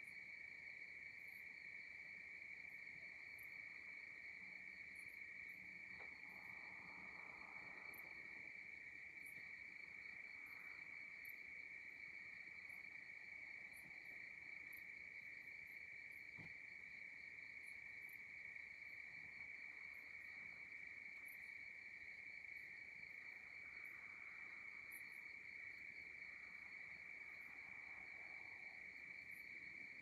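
Crickets and other night insects trilling faintly: a steady, unbroken high trill, with quick, very high ticks scattered irregularly over it.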